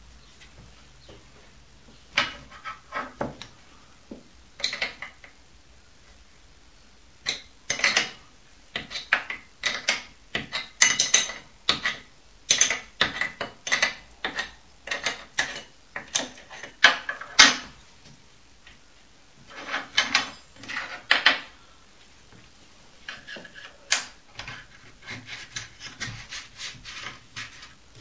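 Hands working on a mini lathe's steel parts: a string of short metal clicks, knocks and scrapes, with a few short pauses.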